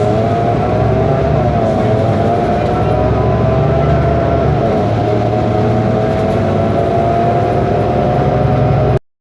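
BMC Belde city bus's Cummins ISBe diesel engine running under way: a steady low drone with a sustained whine above it that sags and rises slightly in pitch. This is the engine sound the owner calls faulty.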